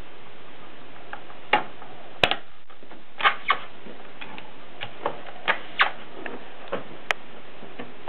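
Triumph Contessa portable typewriter clicking as it is worked by hand around the carriage: about a dozen sharp, irregularly spaced mechanical clicks and snaps over a steady hiss.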